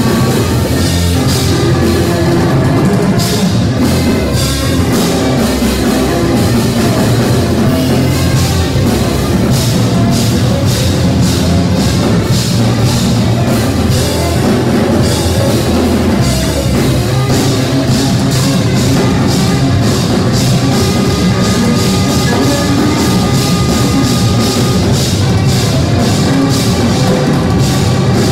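Loud live jazz trio playing: tenor saxophone over electric bass and a drum kit with busy cymbal and drum strokes.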